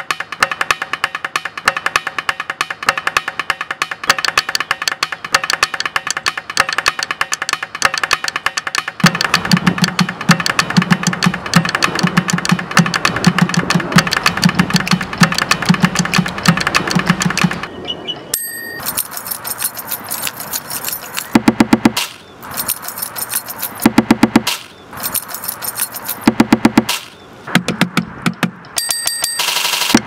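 Layered percussion played on found objects: a fast clicking, rattling groove of coins shaken in a plastic jar, finger snaps and a jangled bunch of keys. A low drum beat joins about nine seconds in and drops out a little past halfway. Bells ring near the middle and near the end, and the last third breaks into short stop-start phrases.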